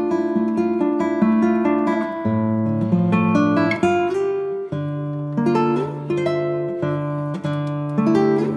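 Background music: an acoustic guitar playing a plucked melody over low bass notes.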